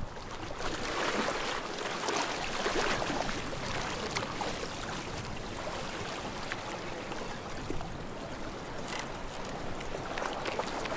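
Mediterranean sea water lapping and washing at the shore, swelling about a second in and again near the end.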